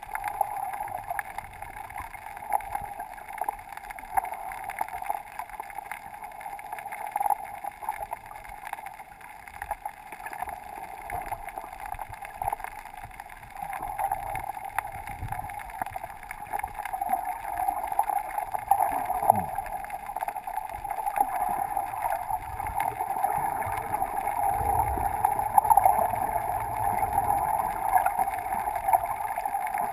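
Muffled underwater wash heard through a GoPro's sealed waterproof housing: a steady hiss-like water noise with scattered small crackles. It grows louder in the second half, with a low rumble coming in.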